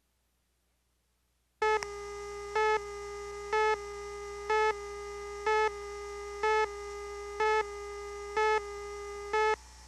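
Videotape countdown-leader tone: a steady electronic tone with overtones, and a louder beep once a second, nine beeps, marking off the countdown numbers. It starts suddenly about a second and a half in and drops to a quieter tone just before the end.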